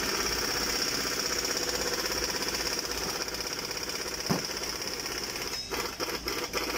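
Steady machine noise with a rapid, even rattle and a high steady whine, and a single short knock about four seconds in.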